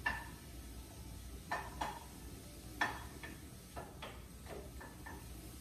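Wooden spatula knocking and scraping against a frying pan while stir-frying vegetables: about ten light, irregularly spaced clacks.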